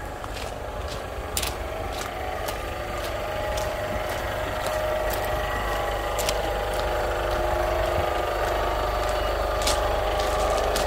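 Kia Sportage's engine idling steadily, growing gradually louder, with occasional sharp clicks.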